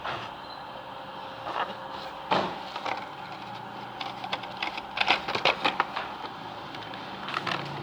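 Scattered light clicks and knocks of small die-cast toy cars and their plastic packaging being handled: one louder knock about two seconds in and a quick run of clicks around the middle.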